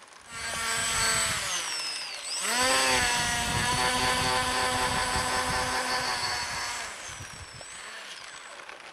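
Remote-control airplane's motor whining: the pitch dips about two seconds in, as if throttled down, then climbs back and holds steady before it drops away near the end.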